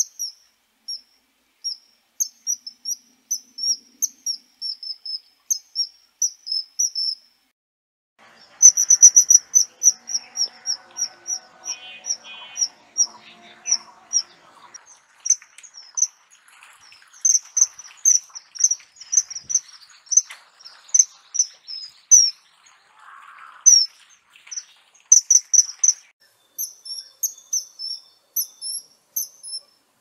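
Common kingfisher giving long strings of short, high-pitched piping calls in quick succession, with a brief pause about seven seconds in. Fainter, lower rustling noise lies under the densest run of calls in the middle.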